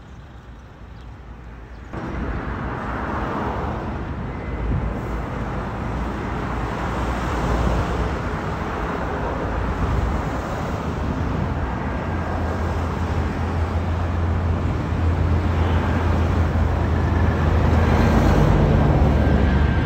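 Boeing 737 jet on low approach, the rushing rumble of its engines growing steadily louder as it comes overhead, with a deep hum building in the later seconds. Street traffic noise lies under it.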